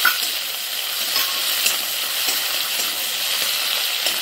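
Prawns sizzling in hot mustard oil in a metal kadai, a steady hiss. A metal spatula stirring them gives a few sharp clicks and scrapes against the pan.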